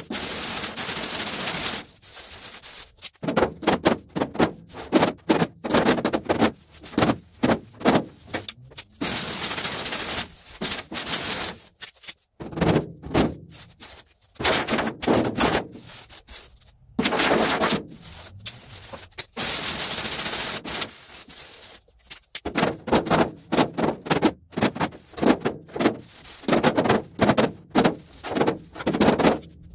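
Hammer-and-dolly work on the welded steel roof panel of a 1932 Chevy coupe: bursts of rapid, sharp metal taps with short pauses, planishing the weld seam to bring the highs and lows level. A few stretches of about two seconds of steady rasping noise come between the bursts.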